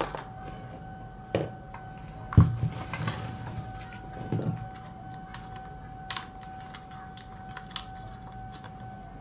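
Irregular knocks and clatter of a Stihl 440 chainsaw's housing and hand tools being handled and set down on a wooden bench during disassembly, the loudest knock about two and a half seconds in. A steady faint high whine runs underneath.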